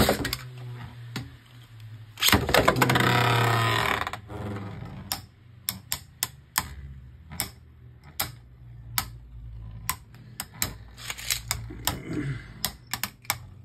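Two Beyblade Burst spinning tops clash in a plastic stadium, giving sharp, irregular clicks throughout. A louder, wavering rasp about two seconds in lasts nearly two seconds.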